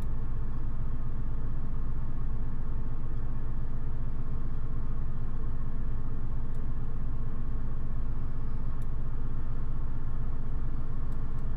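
A steady low hum made of several fixed pitches, unchanging in level throughout, with a few faint ticks.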